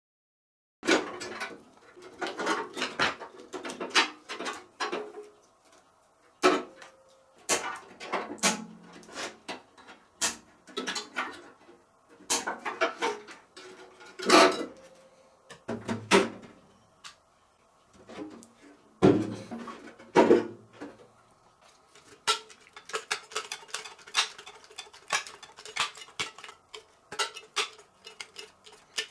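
Irregular metallic clinks, clatters and knocks of tools and microwave parts being handled during disassembly, starting about a second in, with a faint steady hum beneath.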